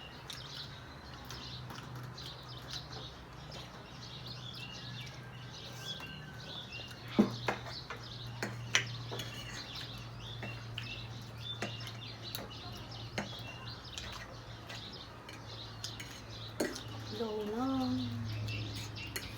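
Spoon or fork clinking now and then against a plate during a meal of chowmein. Small birds chirp in the background over a steady low hum.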